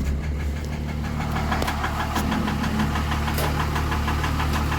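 Cummins turbodiesel idling with a steady, evenly repeating knock from the bottom end: rod knock in a worn-out engine that also has heavy blow-by.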